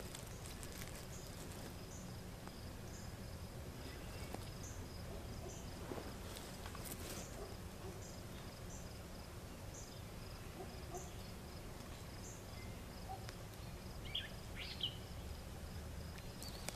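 Crickets and other insects calling in a field: a steady high trill with short chirps repeating every second or so, over a low outdoor rumble. A few brief chirps from a bird come in near the end.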